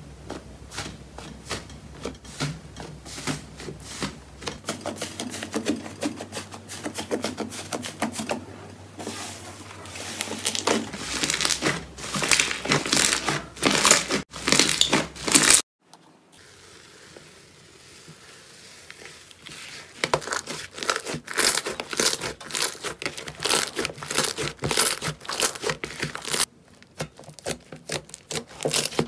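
Hands pressing and kneading thick slime, giving dense runs of sharp crackling pops as trapped air bursts. The sound cuts out suddenly about halfway through, stays quieter for a few seconds, then the crackling picks up again.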